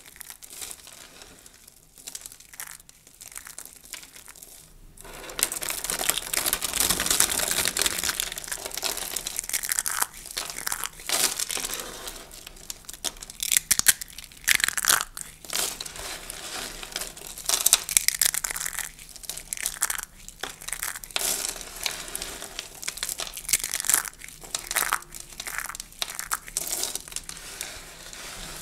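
Dry soap shavings and curls crunching and crackling as they are squeezed and crushed in the fists. The first five seconds are soft and sparse; after that the crunching turns loud and dense, rising and falling with each squeeze.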